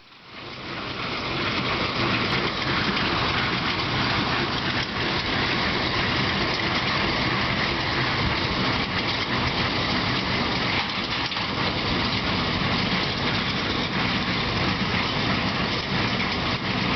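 Tractor and hay baler working, a steady mechanical din that fades in over the first two seconds and holds without a break.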